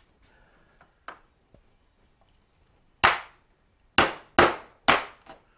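A small mallet tapping a metal plate five times, driving a freshly drilled plate down over its matching plate where the bolt holes are still a tight fit. Faint handling clicks come before the first tap.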